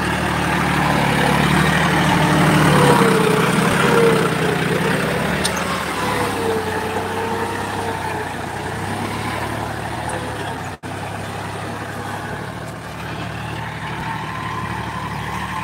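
John Deere tractor's diesel engine running steadily as it pulls a cultivator through the soil, loudest a few seconds in as it passes close by. The sound drops out for an instant about two-thirds of the way through.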